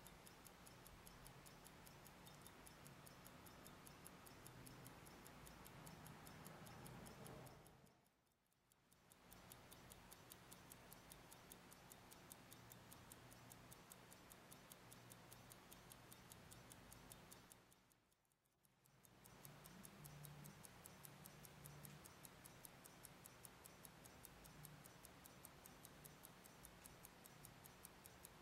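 Faint, rapid, steady ticking of a Hamilton 992B pocket watch movement running, its lever escapement beating about five ticks a second over a faint low hum. The ticking fades out briefly twice, about 8 and 18 seconds in.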